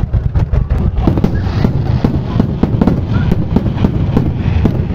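Aerial fireworks shells bursting in quick succession: a dense run of sharp bangs and crackles, several a second, over a deep rumble.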